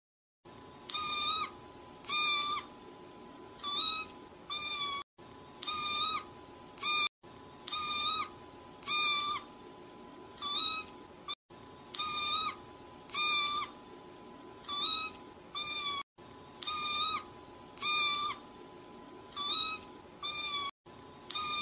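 Newborn kitten mewing over and over: short, high-pitched cries repeating about every second and a half.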